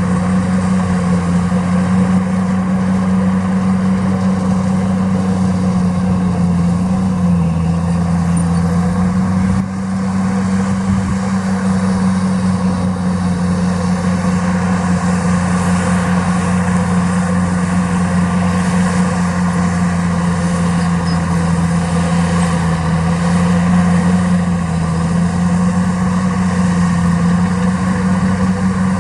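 Diesel engine of heavy earthmoving equipment running steadily at a near-constant speed, its pitch shifting slightly now and then.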